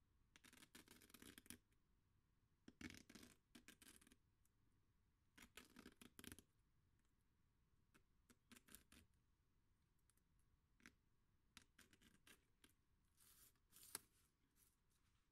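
Faint scratching of a nail point dragged along a plastic ruler to scribe road markings into 180-grit sandpaper: three strokes of about a second each, then several shorter scrapes.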